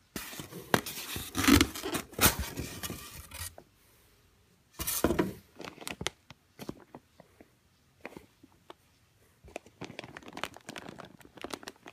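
Hands scraping and rustling through the packing of a foam-lined shipping box, digging through shredded-paper packing material. The loudest rustling comes in the first few seconds, with another short burst about five seconds in, then lighter scattered crackles.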